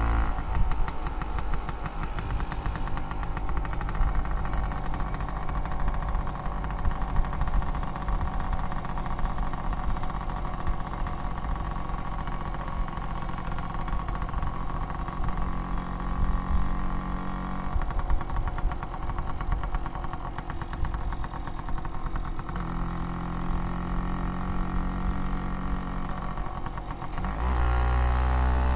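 Vespa PX 200 scooter's two-stroke single-cylinder engine running steadily at low revs through its old exhaust, a fast even putter. Near the end the engine is revved up, rising in pitch and getting louder.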